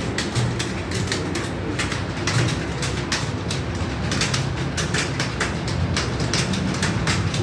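Several computer keyboards clattering together as a room of candidates types at speed: a dense, irregular stream of key clicks, over a low steady hum.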